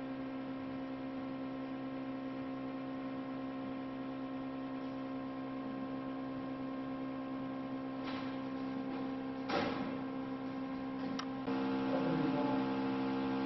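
Steady electrical hum made of several even tones, with a few soft knocks and a click about two thirds of the way in. About a second and a half before the end the hum steps up in level and fills out with more tones.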